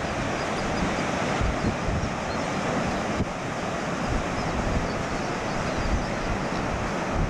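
Ocean surf breaking on a sandy beach as a steady wash of noise, with wind buffeting the microphone in low rumbling gusts.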